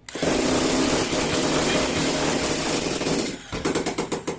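Electric jackhammer switched on and running loudly for about three seconds, then switched off and coasting down with a run of slowing knocks. It is a test run after a carbon brush fault, where the brush was not touching the commutator, and the tool now runs properly.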